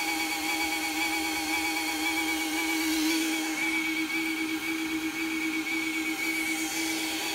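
Bee vacuum's motor running with a steady whine.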